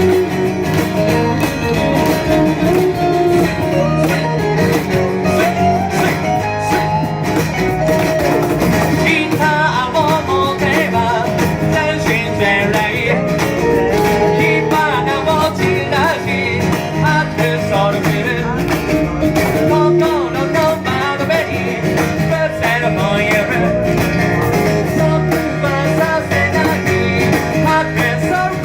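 Live blues-rock band playing an instrumental intro: acoustic and electric guitars over cajon and bass, with no vocals yet.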